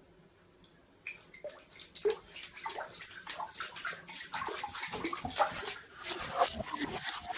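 Shiba Inu paddling its legs in bathtub water, irregular splashing and sloshing that starts about a second in and grows busier.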